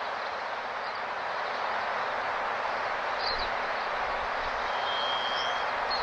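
Steady rushing outdoor background noise with a few short, high bird chirps scattered through it and one brief high whistle about five seconds in.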